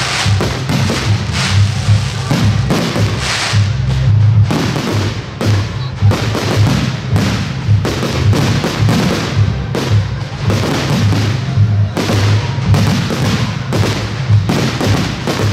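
Fireworks display: rapid bangs and crackling of aerial shell bursts, one after another, over music with a pulsing bass beat.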